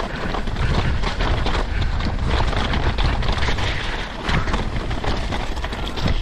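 Wind noise on the camera microphone, with the steady clatter and rattle of a mountain bike rolling fast over rock slabs and loose gravel.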